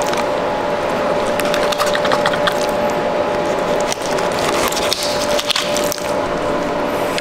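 A knife cutting through the belly lining and flesh of a bluefin tuna, making a dense run of crackling, scraping clicks over a steady hum.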